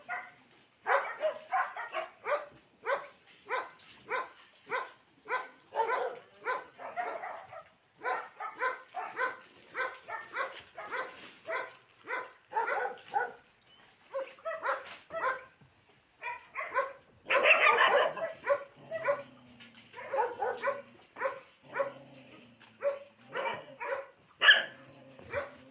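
Puppies barking in short, high yaps, about two a second, with a louder burst of several barks together about two-thirds of the way through.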